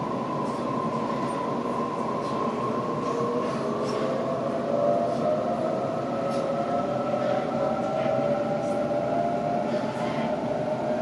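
Sydney Trains Waratah electric train heard from inside the carriage, its traction motors giving a steady whine of several tones that slowly rises in pitch as the train picks up speed, over rolling wheel-and-rail noise with faint clicks.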